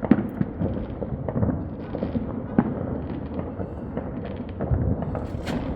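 Many fireworks going off at once: a dense run of pops and bangs with no pause, the sharpest bang just after the start and another about two and a half seconds in.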